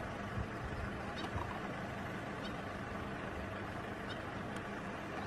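Steady low rumbling background noise with a faint hum, and faint high chirps every second or so.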